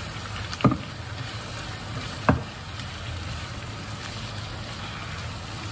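Sliced onions sizzling steadily in hot coconut oil in a kadhai, with two sharp taps of the spatula, about a second and a half apart, as ginger-garlic paste is scraped into the pan and stirred in.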